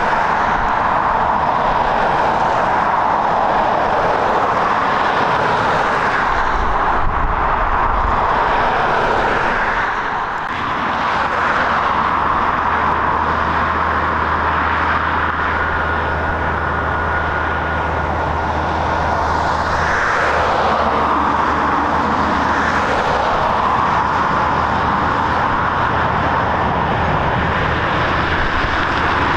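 Jet airliner engines running, a steady loud rush with a short dip about ten seconds in; in the later part this is a Boeing 737 on final approach with its landing gear down.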